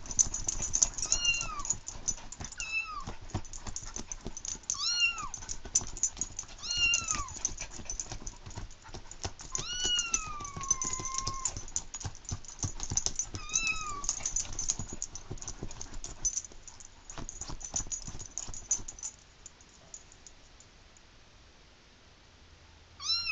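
Kitten-meow ringtone from a cell phone: a string of short meows, each rising then falling, about six in the first fourteen seconds, with one longer meow gliding down about ten seconds in. Many sharp clicks and scrapes run under the meows and die away after about nineteen seconds, and one more meow starts right at the end.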